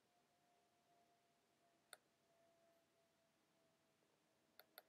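Near silence with a few faint computer mouse clicks: a single click about two seconds in and a quick double-click near the end, over a very faint steady hum.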